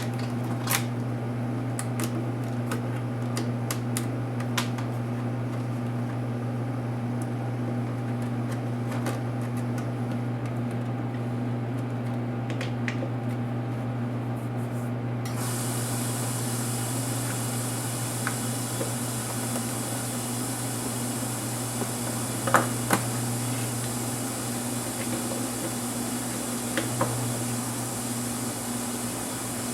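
Small clicks and taps from laptop parts and tools being handled during an HP DV4 disassembly, over a steady low hum. A steady high hiss sets in about halfway through, and two sharper clicks come about three-quarters of the way in.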